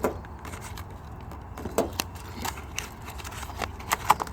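Scattered clicks and light knocks from hands handling a small blow-torch lighter and its packaging, the sharpest near the start and about four seconds in, over a low steady rumble.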